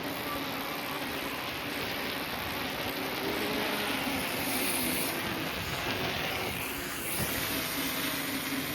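Steady road and engine noise of a car driving, an even rushing hiss with a faint low hum underneath.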